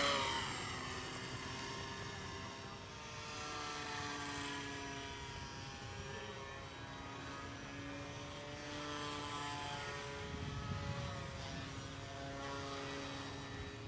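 Electric motor and propeller of a radio-controlled Boeing P-26 Peashooter model plane whining in flight. The pitch drops as it passes at the start, then holds a steady tone that wavers slowly up and down as the plane circles overhead.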